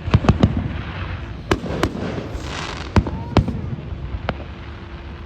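Aerial fireworks going off: a run of sharp bangs, three close together at the start and more spaced a second or so apart, with a crackling hiss of bursting effects about halfway through.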